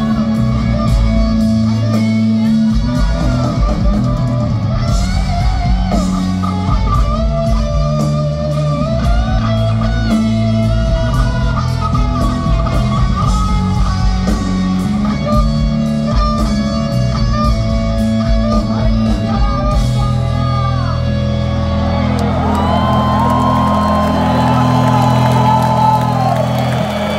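A rock band playing live, picked up from within the audience: electric lead guitar over bass and drums. About twenty seconds in the drums drop out and a long held high note rings over the sustained band, growing louder toward the end.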